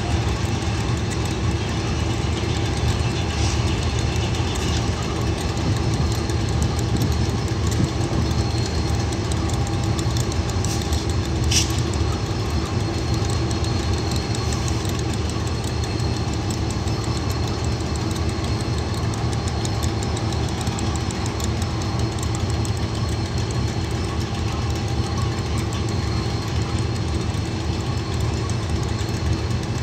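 KiwiRail DX-class diesel-electric locomotives idling steadily: a continuous low engine rumble with a faint high whine above it.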